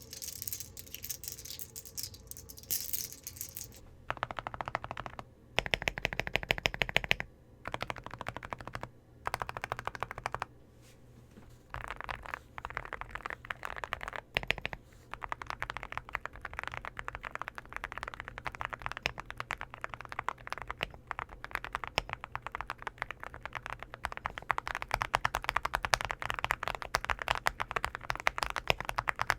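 Typing on a mechanical keyboard fitted with ceramic keycaps (Cerakey Ceramic V2): rapid key clacks, in short bursts at first, then fast continuous typing from about twelve seconds in.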